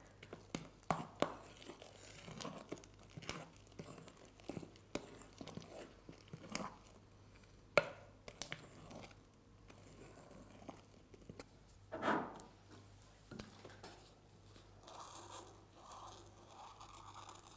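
Fluffy slime made of glue and shaving foam being squeezed and stretched by hand in a glass bowl: soft, irregular sticky crackles and squelches, with two louder pops, one near the middle and one about two-thirds through. Near the end it is stirred with a spatula.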